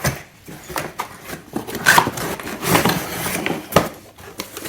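Irregular clicks, knocks and rustling as the vacuum cleaner's plastic attachments are handled out of the box.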